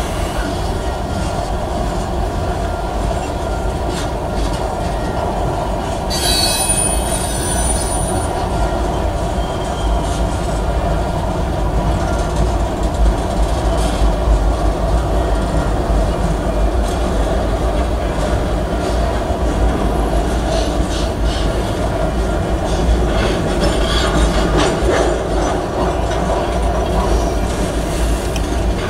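Freight train tank cars rolling past: a steady rumble and clatter of steel wheels on the rails, with a brief high wheel squeal about six seconds in.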